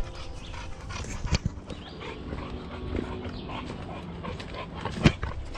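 A dog close by, with walking and rustling sounds and two sharp knocks, one about a second in and a louder one near the end.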